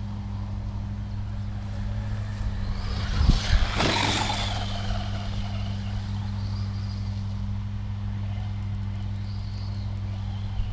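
RC car's electric motor whine sweeping past about three to four seconds in, falling in pitch as it goes by, over a steady low hum.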